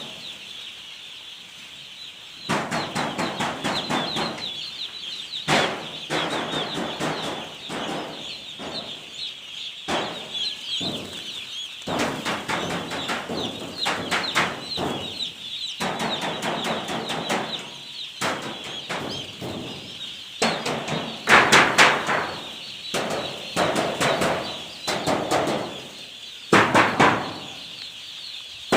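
A flock of chickens in a poultry house: a constant chorus of many high chirping and peeping calls, with repeated bursts of louder clucking and squawking, the loudest a little after the middle and near the end.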